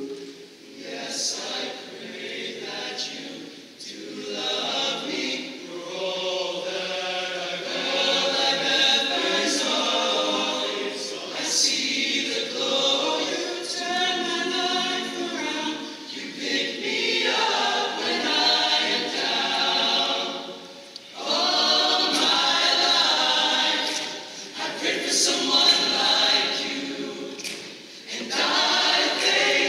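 All-male high school choir singing in several voice parts, in phrases that swell and drop back every few seconds.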